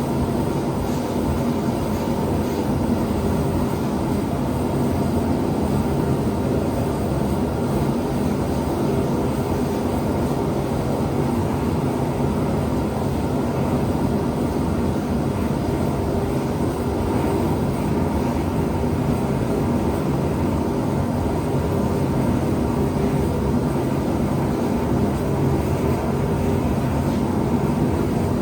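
Gas forge burners running steadily, a constant rushing noise with a low hum.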